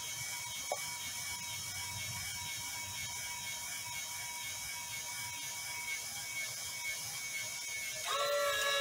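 Small electric gear motor and Meccano gear train running with a steady low whir as they lower the model's deck lid, with one click a little under a second in. Near the end a louder, steady whine with several tones starts as the sequencer motor steps round.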